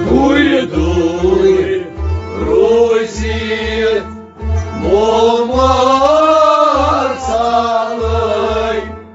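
Kashmiri Sufi devotional song: a man sings a long, arching melodic line over harmonium, a rabab and a bowed string instrument, with a steady low beat about twice a second.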